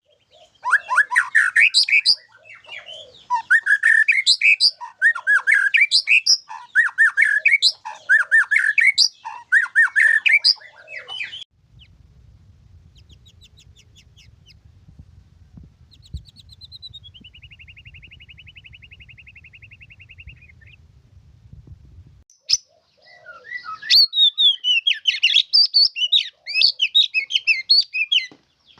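White-rumped shama singing loud, varied whistled phrases in quick succession. About eleven seconds in, the song stops for roughly ten seconds, leaving a low hum and a faint, thin buzzing trill, then the singing resumes.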